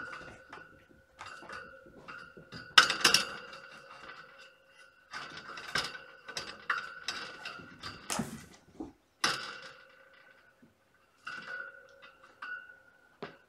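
Irregular knocks, thumps and clatters of kittens playing rough: running, leaping onto and off cat furniture and batting at toys. The loudest knock comes about three seconds in, with more around eight and nine seconds, some of them ringing briefly.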